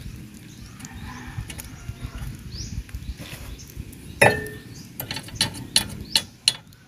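Metal hand tool clinking and tapping against the steel steering knuckle and suspension arm of a multicab's front suspension. It is quieter at first, then about four seconds in comes a loud clink, followed by a quick run of sharp clinks.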